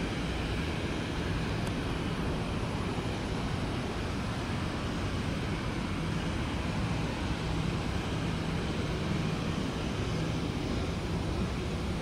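Airliner engines running, a steady even rush of noise that neither rises nor falls.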